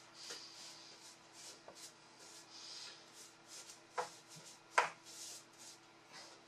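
Brush rubbing in a quick run of short strokes, about two or three a second, with two sharp knocks about four and five seconds in, the second the loudest.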